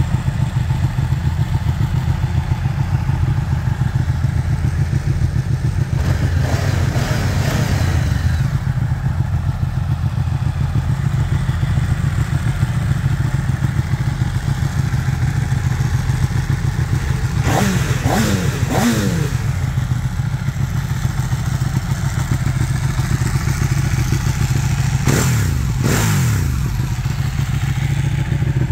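Sportbike engine idling steadily, given a few quick throttle blips (about a quarter of the way in, just past halfway, and near the end), the pitch falling back to idle after each.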